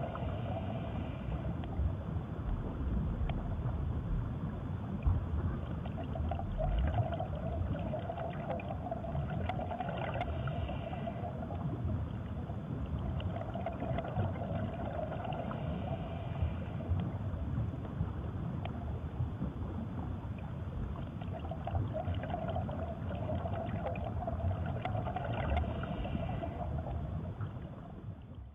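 A steady low rumble, with a wavering mid-pitched hum that swells up and dies away several times.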